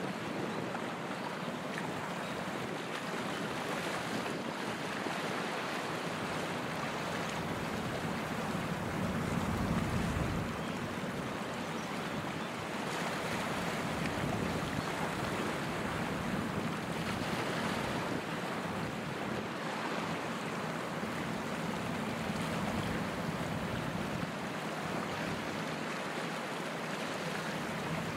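Steady rush of wind and sea water with a low rumble underneath, swelling slightly about ten seconds in.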